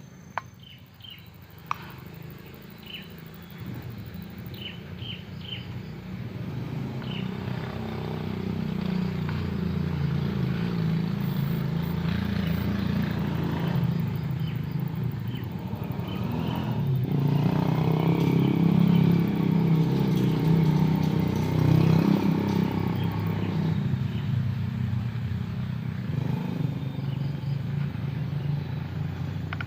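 A vehicle engine running steadily, growing louder over the first several seconds and staying loud, with two sharp clicks and a few short high chirps near the start.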